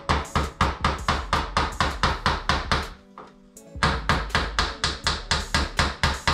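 Hammer tapping a small nail into a door trim strip in quick, even blows, about five a second, with a short pause about three seconds in. Background music plays underneath.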